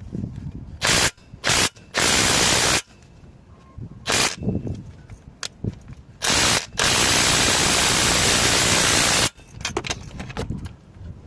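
Pressurised spray hissing in bursts, several short ones and two longer ones of about one and two and a half seconds, with a few sharp clicks near the end.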